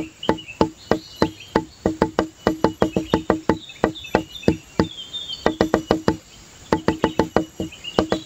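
Background music of quick, evenly pitched wood-block-like knocks, about four a second with a couple of short breaks, under high chirping notes.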